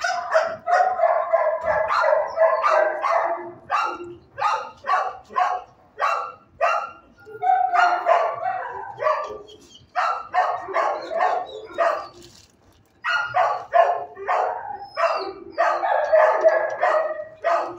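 Dogs barking in a shelter kennel, with many rapid barks overlapping and a brief lull about twelve seconds in.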